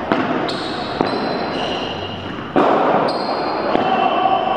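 Padel ball being struck by rackets and bouncing in a reverberant indoor court: a series of sharp knocks, about six in the few seconds, some followed by a brief high ringing.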